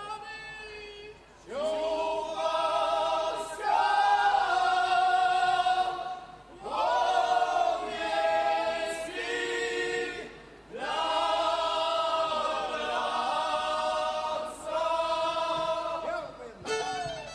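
A group of men singing a Górale (Podhale highlander) song in loud, full-voiced phrases, three of them, each opening with an upward swoop of pitch. Near the end a string band of fiddles starts to play.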